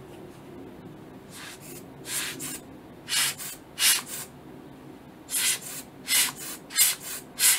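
Rubber bulb air blower puffing air onto a camera lens element to clear dust. About a dozen short puffs of hiss, often in pairs, starting a little over a second in.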